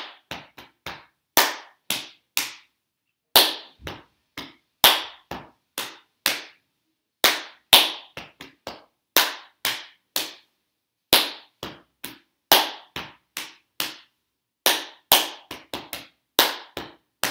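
Body percussion: loud hand claps alternating with softer slaps on the chest and thighs, played in a repeating 15-beat pattern at a brisk tempo.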